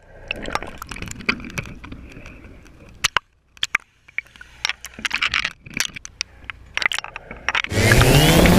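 Scattered clicks, knocks and scraping of things being handled, then near the end a motorboat engine comes in loud and rises in pitch as it speeds up.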